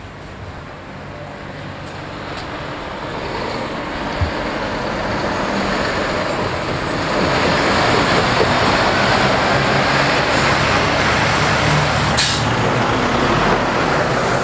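Heavy diesel trucks (a Scania, then a DAF XF tractor unit) driving past at close range: engine running with tyre and road noise, growing louder over the first half and then staying loud as the DAF passes alongside. A brief sharp click near the end.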